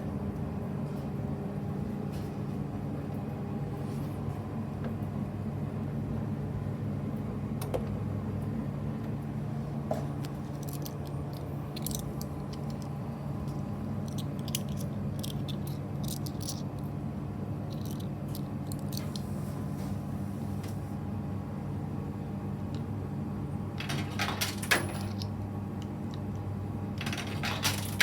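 SANYO drum-type washing machine, about 1990 vintage, running its wash cycle: a steady motor hum as the drum turns, with scattered light metallic clinks and jingles from the tumbling load, loudest twice near the end.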